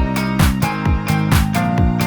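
Background music with a steady beat, about two drum hits a second under sustained notes.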